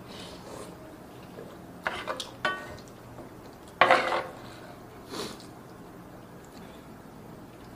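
Wooden spoon knocking and scraping against a pan while scooping curry noodles: a few short knocks about two seconds in and a louder scrape about four seconds in, with a softer one just after five seconds.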